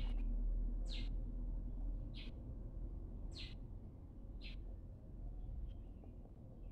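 A bird's short chirps, four of them about a second apart, over a low steady hum.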